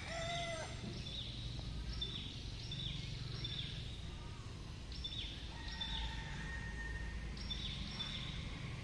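Small birds chirping over and over in short falling notes, with a steady whistled note for a couple of seconds after the middle, over a steady low outdoor rumble; a rooster's crow ends within the first second.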